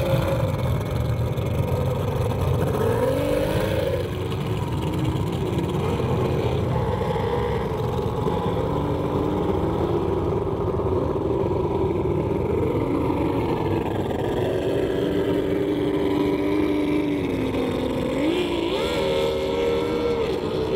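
Mercury outboard on a tunnel-hull race boat running at racing speed, its engine note falling and rising as it works through turns, with a quick rise near the end.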